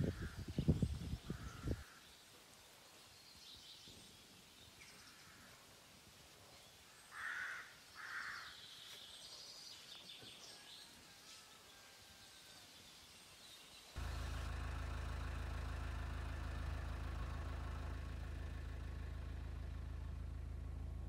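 Wind buffets the microphone for the first two seconds, then quiet outdoor air with a bird calling twice about seven seconds in. About fourteen seconds in it cuts abruptly to the steady hum of a car's engine and road noise, heard from inside the car.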